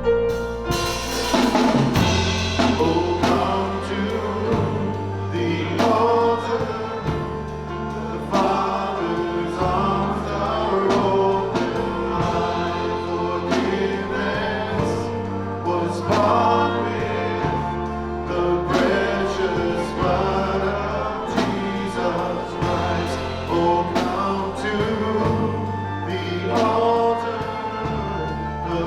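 Worship band playing a slow contemporary gospel song with singing. Drum kit keeps a steady beat under held bass notes that change about every two seconds.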